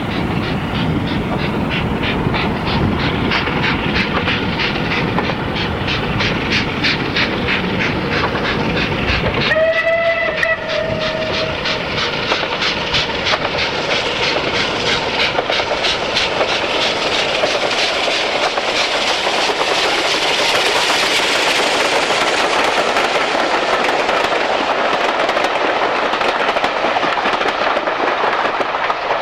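Unrebuilt Bulleid Battle of Britain class three-cylinder 4-6-2 steam locomotive working hard with a train, with a rapid run of exhaust beats. Its whistle sounds once for about a second and a half about ten seconds in. Later the engine and coaches pass with a louder rush of steam and wheel noise on the rails.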